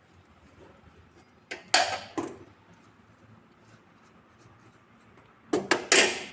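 Two short bursts of clicks and scraping, about a second and a half in and again near the end, from hands working cables into a PV combiner box.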